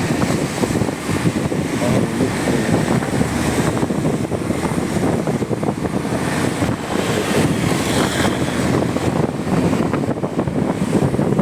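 Steady wind rush on the microphone of a motorcycle riding in the rain, with vehicle and road noise underneath.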